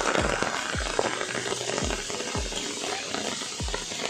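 Heavy rain pattering steadily onto water and leaves, with background music carrying a steady beat about twice a second.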